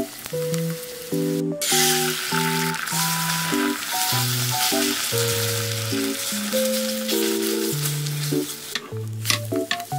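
Beaten egg sizzling in a hot oiled frying pan while it is stirred with chopsticks. The sizzle starts suddenly about one and a half seconds in and stops near the end.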